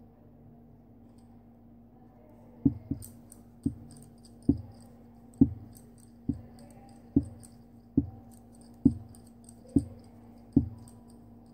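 Metal knitting needles knocking and clicking as stitches are worked: a dull knock roughly once a second from a few seconds in, with faint light clicks in between.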